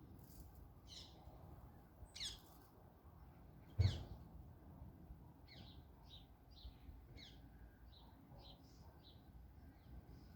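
Small birds chirping: a few sharp separate calls, the loudest about four seconds in together with a low thump, then a run of short, quick chirps.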